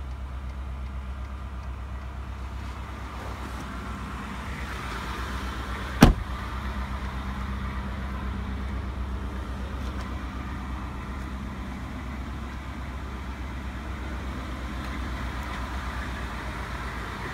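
Ford F-150 pickup engine idling: a steady low rumble with a fine, rapid pulse. A single sharp thump about six seconds in.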